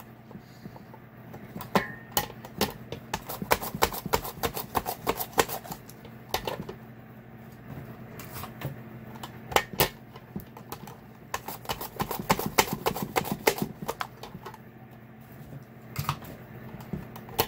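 Cucumbers being sliced into thick rounds on a plastic V-blade mandoline with a hand guard: rapid clicking and clacking strokes in bursts with short pauses. A steady low hum from a food dehydrator runs underneath.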